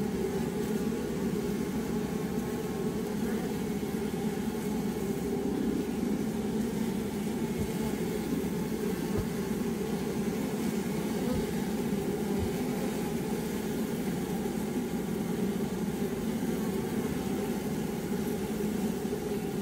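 Honeybees buzzing: a steady hum from many bees.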